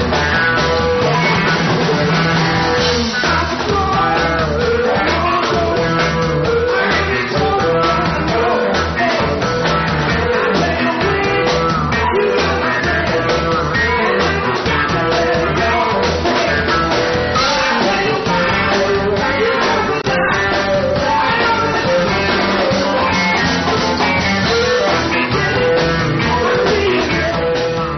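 Live band playing a rock song: singers at the microphone over electric guitar and drums.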